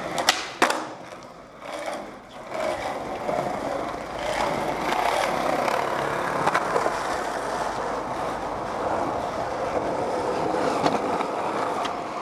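Skateboard wheels rolling on a smooth hard floor with a steady rolling noise. Near the start there are two sharp clacks of the board, about a third of a second apart.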